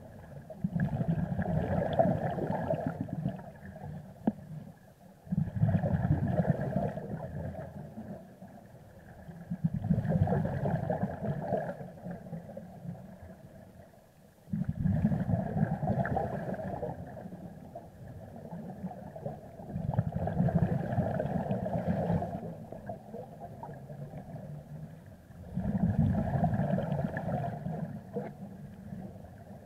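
Scuba diver's breathing heard underwater: exhaled bubbles gurgling out of the regulator in bursts about every five seconds, six breaths in all, with quieter gaps between.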